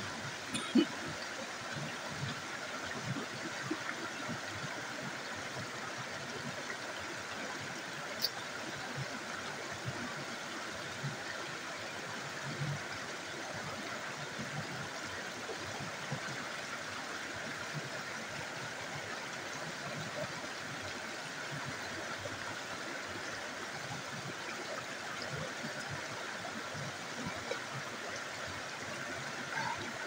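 Small rocky stream running over stones in a low cascade: a steady rush of water, with an occasional sharp click.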